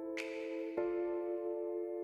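Soft background music: sustained keyboard chords, with a new chord struck just under a second in and a brief hissing shimmer near the start.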